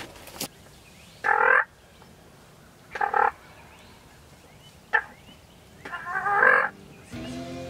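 Wild turkey toms gobbling: four loud gobbles about two seconds apart, the last one the longest.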